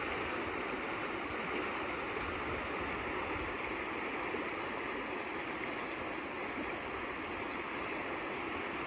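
Fast-flowing spring-fed stream rushing steadily over shallow riffles.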